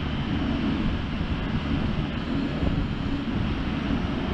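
Komatsu PW98MR-6 wheeled excavator's diesel engine running steadily while the operator works the dozer blade and arm, with wind buffeting the microphone.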